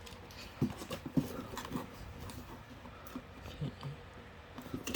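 Hands working at a cardboard toy box that is sealed tight: soft, scattered taps and scratches as the seal is picked at.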